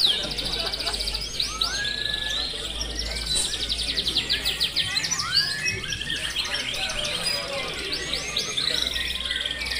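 Several caged canaries singing at once, overlapping fast trills and rapid sweeping chirps, over a low steady hum.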